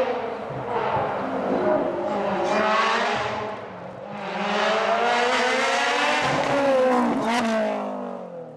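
Rally car engine revving hard as it accelerates at high revs. It eases off briefly about four seconds in, climbs again, then drops in pitch and fades as the car goes by near the end.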